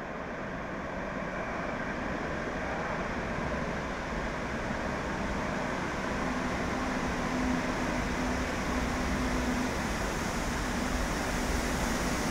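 Metro train approaching out of the tunnel and running into the station along the platform, its rumble growing steadily louder. A steady low hum joins about halfway through.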